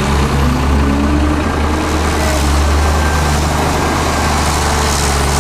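Diesel engine of a Hyundai Robex 2900LC-3 crawler excavator running steadily while it works, a loud low hum with a tone rising briefly in the first second or so.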